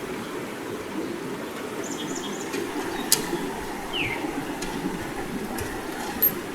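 Steady rush of creek water, with a few sharp clicks and knocks as a toolbox is fitted onto a portable sluice box; the loudest clicks come about 3 s in and just after 6 s, and two short falling squeaks come about 4 s in and at the very end.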